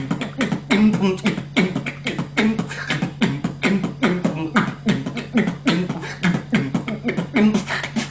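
A man beatboxing a quick rhythm, sharp percussive mouth sounds about five or six a second, with short pitched low bass tones woven between them.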